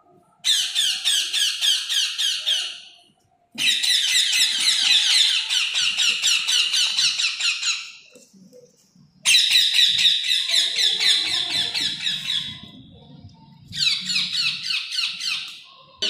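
Parrot chicks giving rapid, repeated begging calls while being hand-fed, in four bursts of chatter lasting a few seconds each with short pauses between.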